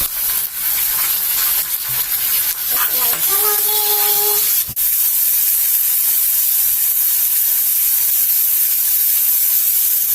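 Chopped green beans and potatoes sizzling in plenty of hot oil in a kadai, a steady frying hiss just after the beans go into the pan.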